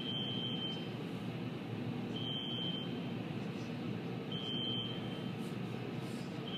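Electronic warning beep: one steady high tone about half a second long, repeating every two seconds, four times, over a steady rushing background noise.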